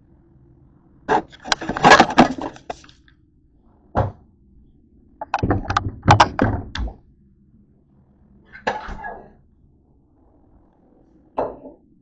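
Kitchen clatter: hard items knocked and set down in several bursts, a long rattling clatter, a single knock, another clatter, then a few smaller knocks near the end.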